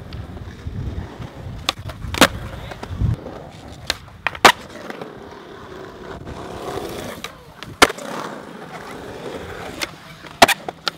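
Skateboard wheels rolling on a concrete skatepark surface, with a low rumble that is strongest in the first few seconds. Sharp board clacks of tails popping and boards landing come about six times, the loudest near the middle and near the end.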